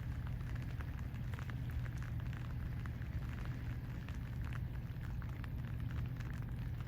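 River otter chewing a crab, with irregular crunches and cracks of shell over a steady low hum.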